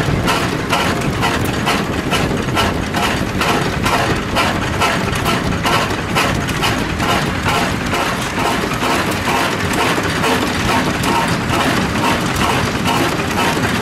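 A 1908 Austral 5.5 hp stationary oil engine running steadily. Its mechanism makes a fast, even clatter of several ticks a second over a low running rumble.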